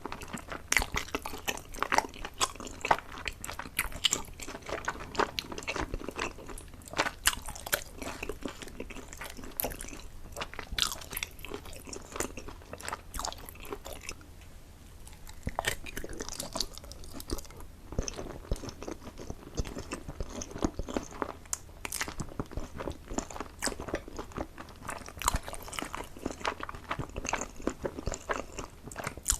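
Close-miked eating sounds: a person chewing and biting food, a dense run of small wet mouth clicks that thins out briefly about halfway through.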